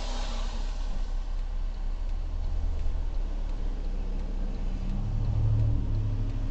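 Steady low engine rumble and road noise heard from inside a stationary car in the rain as traffic passes. A deeper engine note swells about five seconds in as a pickup truck draws up alongside.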